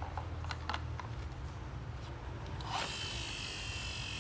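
Plastic toy concrete mixer truck being handled: a few light clicks, then about three-quarters of the way through a high, steady whir starts and holds, drifting slightly down in pitch, like a small toy mechanism spinning.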